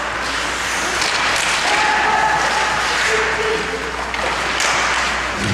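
Crowd clapping and cheering in an ice hockey rink, with a few voices shouting over the noise.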